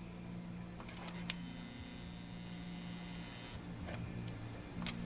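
Light handling clicks of small parts and tools on a workbench over a low, steady hum, with one sharper click a little over a second in.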